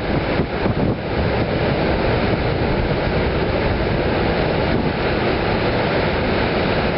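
Steady rushing roar of a tall waterfall, with a double-stack freight train running across the railroad bridge just above it mixed in. Wind buffets the microphone in the first second or so.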